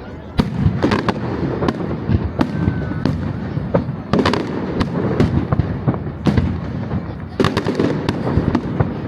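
Aerial fireworks display: a rapid, irregular string of sharp bangs and crackles over a continuous rumble of distant bursts and their echoes, with heavier clusters of bangs about four, six and seven and a half seconds in.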